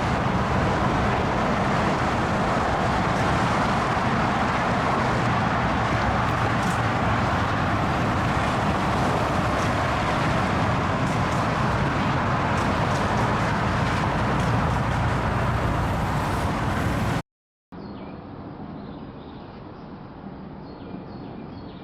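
Steady wash of road traffic noise, the kind of constant drone that comes off a busy freeway. It cuts off abruptly about seventeen seconds in and, after a brief silence, gives way to a quieter, duller background noise.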